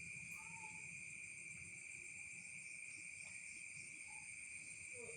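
Steady night chorus of insects such as crickets: continuous high, even trilling at several pitches at once, with a few faint short calls from some other small animal.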